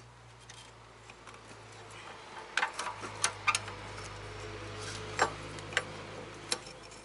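Sharp metallic clicks and taps of tools and small metal parts being handled on a car's parking brake shoe hardware, a handful of them from about two and a half seconds in, over a low steady hum.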